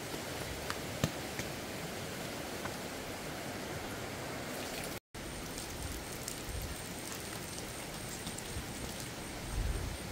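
Steady outdoor background hiss with a few faint clicks; the sound cuts out for an instant about five seconds in, and after that a thin, high steady whine sits over the hiss.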